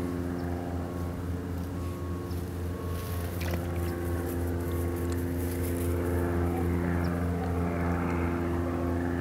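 Steady engine drone: a constant low hum with evenly spaced overtones, growing slightly louder after about five seconds. A few faint clicks come a little after three seconds in.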